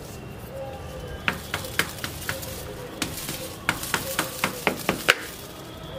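The side of a plastic flower pot being tapped with a tool: a dozen or so irregular sharp knocks, the loudest near the end. The tapping loosens the root ball from the pot before the plant is pulled out.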